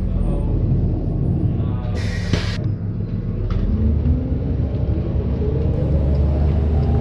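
Bus engine running with a low rumble while riding, its note rising near the end. A short hiss of air, about half a second, comes about two seconds in.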